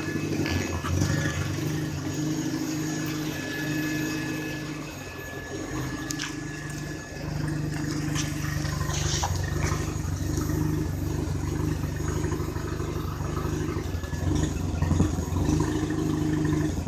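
1980 Mazda RX-7's 12A two-rotor rotary engine running rough with its air filter cover off, swelling and dropping in level. It makes a weird purring noise that the owner says doesn't sound healthy: a fault not yet known, in an engine that had been smoking, lagging and backfiring.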